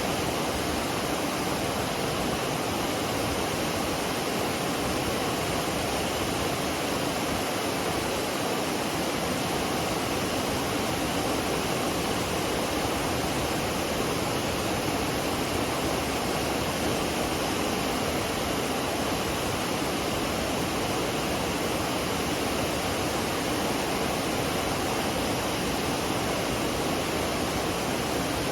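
Waterfall pouring in a steady, unbroken rush of water: McCloud Falls on the McCloud River.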